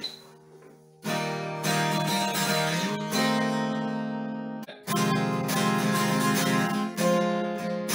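Steel-string 1969 Framus Texan acoustic guitar, tuned a half step down, with chords strummed and left to ring. It sounds loud. There is a quiet moment at the start and a short break just after the middle before the strumming resumes.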